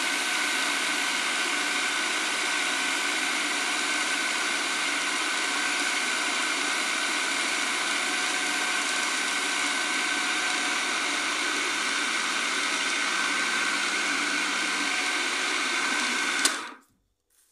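Electric food processor running steadily as it grinds a kibe mixture of ground meat and bulgur wheat. Near the end there is a click, and the motor winds down and stops.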